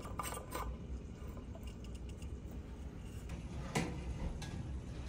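Small metallic clinks and handling of a screw-in basking bulb and its metal dome reflector lamp. A single knock comes a little before the end, as the lamp goes onto the terrarium's mesh screen lid.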